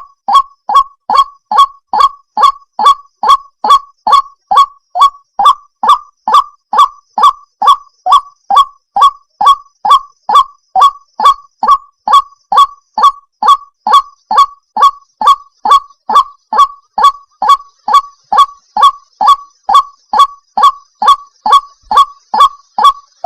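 White-breasted waterhen (ruak-ruak) call: a short 'ruak' note repeated over and over at a strictly even pace, about two and a half a second, each note dropping in pitch.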